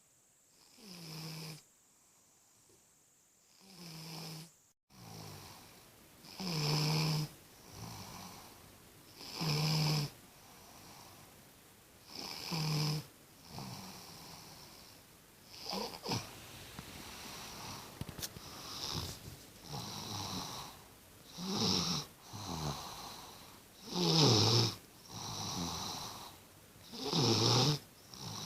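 A sleeping baby snoring, a raspy pitched snore on each breath about every three seconds. It is faint at first and louder from about six seconds in.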